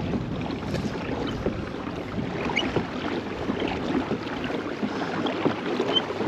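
Pedal-drive kayak under way on a river: water washing along the hull, with wind rumbling on the microphone. A few faint short chirps sound above it.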